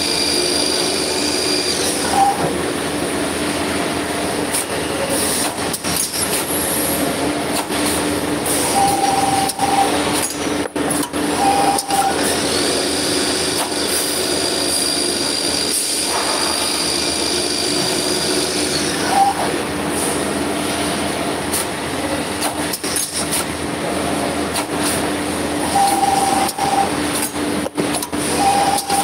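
Copper tube cutting and end-forming machine running continuously: a steady mechanical hum with a high whine that comes and goes, scattered clicks, and short tones every few seconds as tubes are fed and cut.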